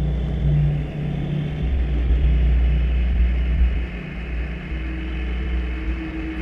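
Industrial ambient drone music: a deep, rumbling bass bed with a broken low hum and a hiss above it. A higher steady tone comes in about three-quarters of the way through.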